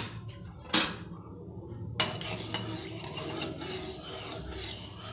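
Kitchen utensils knocking twice against a pan or bowl, then about two seconds in a stretch of busy stirring and scraping with many small clicks of metal on metal.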